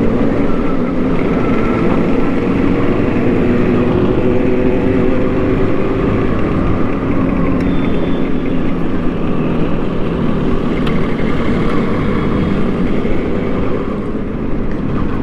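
Yamaha RD350 motorcycle's two-stroke twin-cylinder engine running at a fairly steady speed.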